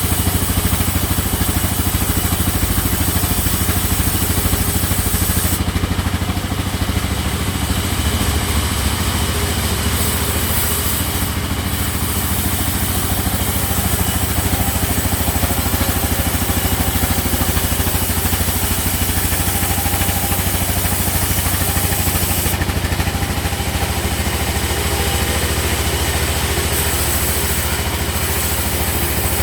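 Sawmill machinery running steadily, a constant engine-like hum with a low drone.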